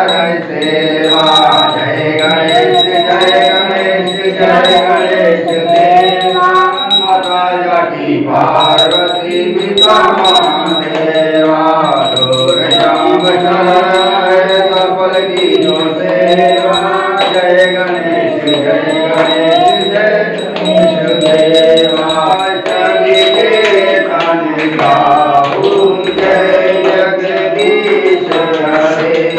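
A group of people singing a Hindu aarti hymn together in a chant-like melody, with repeated short sharp strikes running through the singing.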